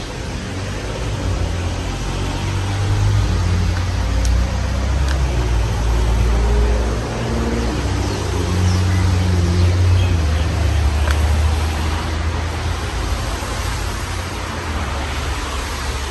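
Rush of air from a 60-inch Fanimation Enigma ceiling fan running, buffeting the microphone as an uneven low rumble over a steady hiss.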